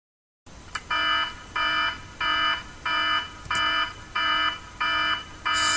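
Electronic alarm beeping: about eight even, half-second beeps, roughly one and a half a second, each a shrill chord of steady tones.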